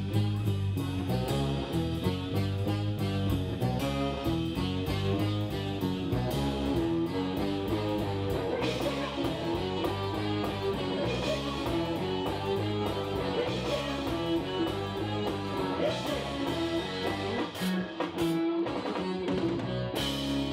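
Live rock band playing an instrumental passage: electric guitar over a drum kit keeping a steady beat.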